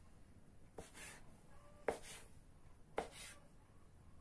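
Knife cutting a strip of rolled dough into diamond-shaped pieces on a wooden board, the blade knocking on the board three times, about a second apart.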